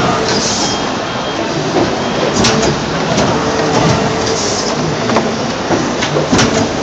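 Plastic injection molding machine running fast cycles: a steady loud machine noise with sharp clicks and knocks, and a short high hiss near the start and again about four seconds later.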